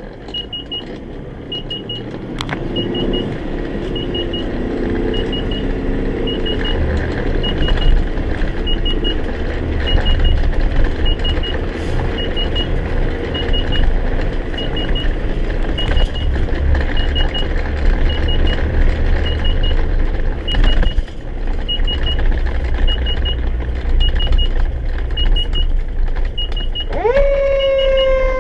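Responding emergency vehicle: its engine runs and picks up speed under a warning beep that sounds in quick triple pips about once a second. Near the end a siren starts up, rising quickly and then sliding slowly down.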